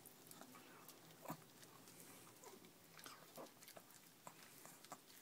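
Faint, irregular clicks and crunches of a small dog biting and gnawing at an ear of corn on the cob, one sharper crunch about a second and a half in.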